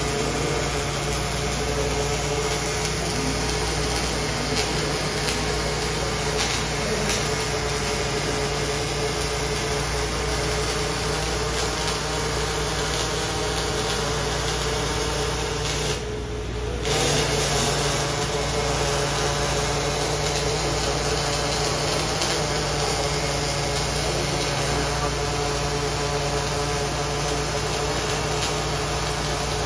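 Robotic CMT welding cell at work, depositing wire-arc additive manufacturing beads: a steady hissing noise with a constant hum and tone underneath. The hiss briefly drops out a little past halfway, then resumes.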